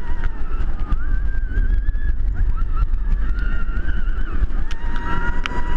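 Wind buffeting the microphone of an onboard camera on a steel roller coaster in motion, a heavy low rumble throughout. Over it, riders scream in long high cries that waver and break off, the loudest twice, about a second in and near the end.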